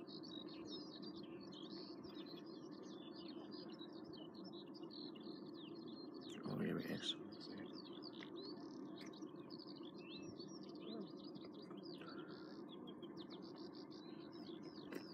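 Birds singing continuously, a dense run of quick high chirps and trills over a steady low background hiss. A brief louder bump about six and a half seconds in is the loudest moment.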